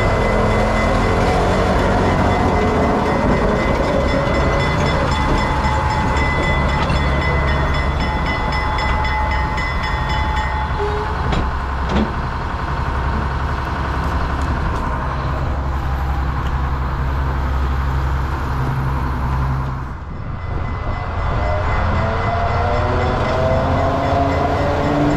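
A GE 55-ton diesel switcher runs with a steady low drone as it moves through the yard with a caboose in tow. A thin high whine sits over the engine for the first ten seconds or so, and there is a single sharp click about twelve seconds in. Near the end the engine note climbs as it throttles up.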